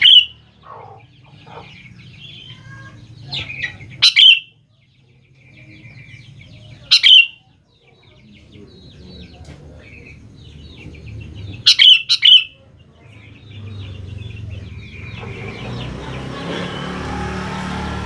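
Sooty-headed bulbul (kutilang) calling, a lure recording: loud, short, sharp calls every few seconds, one doubled near the end, with softer chirps between. A low steady rumble runs underneath and swells near the end.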